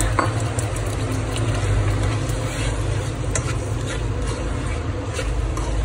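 Minced chicken and water heating in a wok on an induction hob: a steady low hum under a faint sizzle, with a few light scrapes and taps of a nylon slotted spatula.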